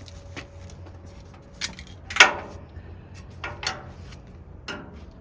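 A handful of sharp knocks and clanks, the loudest about two seconds in with a brief ring after it, over a low steady hum.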